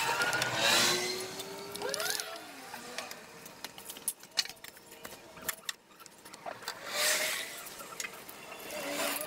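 Fast-forwarded workshop sound of a water pump being fitted into a car's engine bay: quick metallic clinks and rattles of the pump body and tools, with short high gliding squeaks.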